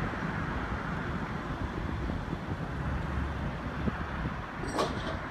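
Steady road traffic noise with wind buffeting the microphone. A brief high squeak sounds near the end.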